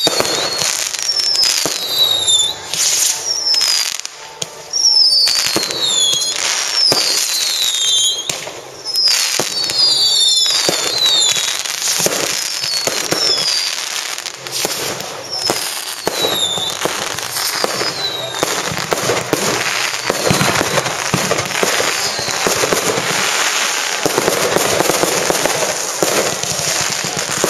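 Fireworks going off in a rapid run of bangs and crackles. Many short whistles fall in pitch through roughly the first half, giving way to denser crackling later on.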